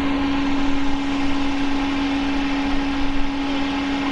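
A steady machine hum holding one unchanging pitch, over a low rumble, from a running motor or fan.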